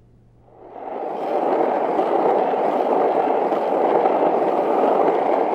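Skateboard wheels rolling on pavement: a steady rolling rumble that fades in about a second in and holds even.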